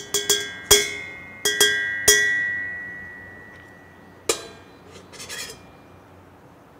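A metal spoon tapped repeatedly against a stainless steel saucepan, each tap ringing on briefly. The taps come quickly in the first two seconds, with one more about four seconds in and a few softer clinks after it.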